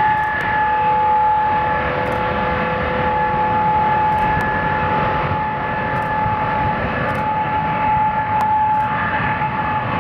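Jet airliner engines running: a steady whine of a few held tones over a broad rumble.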